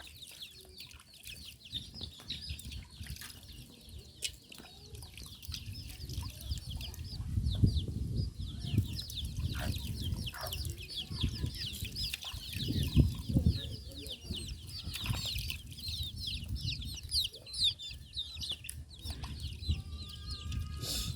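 Chickens clucking, with many short high chirps packed close together, over a low rumbling noise that swells about eight and thirteen seconds in.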